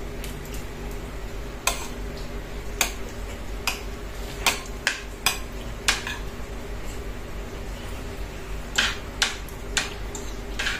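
Metal spoon and fork clinking against a plate while eating: sharp, separate clicks at uneven intervals. One run comes in the middle and a second cluster near the end.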